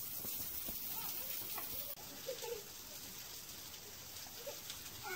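Steady hiss with faint, distant voices now and then.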